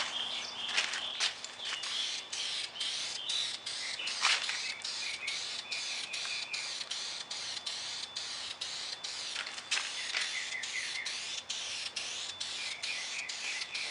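Birds chirping and calling in short trills, over a high hiss that pulses steadily about three times a second.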